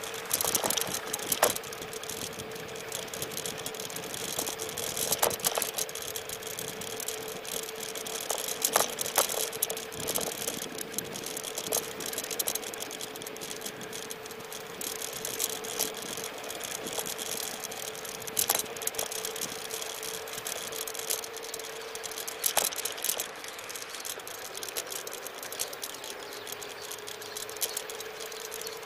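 Xplorer Ambassador electric scooter riding along a street: a steady motor whine that dips lower and climbs back near the end, over road and wind noise, with scattered clicks and rattles from the scooter over bumps.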